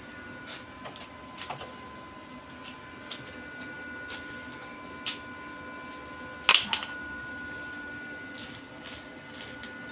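Workshop sounds: a steady faint high hum with scattered light clicks, and one sharp knock about six and a half seconds in.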